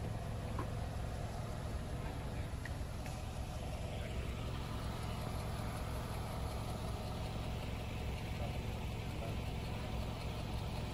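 Steady engine and road noise inside a moving car's cabin: a low, even drone under a constant hiss.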